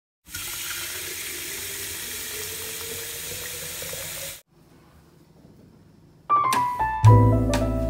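Tap water running in a steady stream into a glass pitcher for about four seconds, then cut off suddenly. After a short lull, background music starts near the end.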